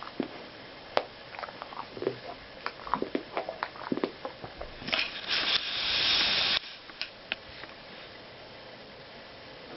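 A boxer dog grinding his teeth: irregular sharp clicks and short scraping squeaks of tooth on tooth, sign of dental trouble caused by the breed's jaw conformation (teeth needing extraction and a cyst). About five seconds in, a loud rush of noise builds for a second and a half and cuts off suddenly, followed by a few more clicks.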